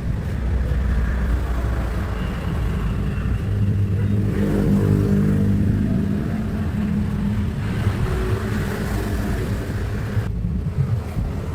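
Toyota 2L four-cylinder diesel engine running steadily after its overhaul, a low continuous rumble whose note grows stronger for a few seconds around the middle.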